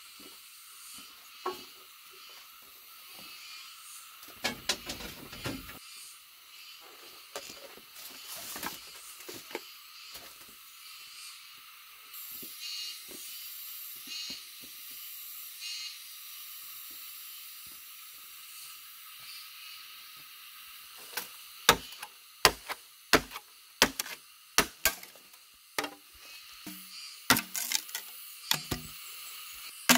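A billhook chopping bamboo: a run of sharp, irregular strikes begins about two-thirds of the way through. Before it there are scattered light knocks and rustles, and a steady high hiss runs underneath.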